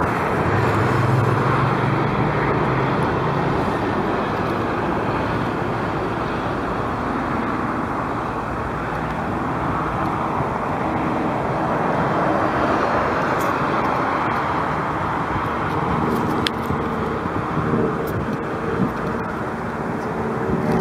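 Steady outdoor roar of airport and road noise, with no single engine standing out; a low hum in the first couple of seconds and a few faint clicks near the end.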